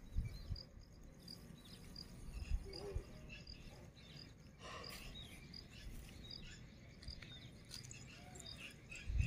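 Crickets chirping faintly in a regular rhythm, about twice a second, over a low rumble.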